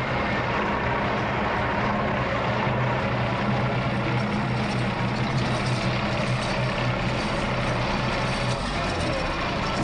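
Rebuilt diesel bus engine idling steadily and evenly, running on a test start without coolant in it.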